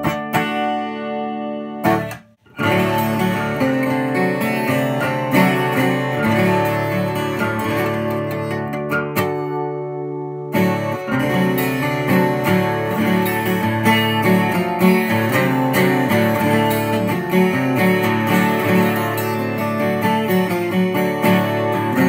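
Twelve-string acoustic guitars strummed and picked in ringing chords, first a Martin D12X1 and then, from about 10 seconds in, a Seagull S12+. The sound breaks off briefly just after 2 seconds.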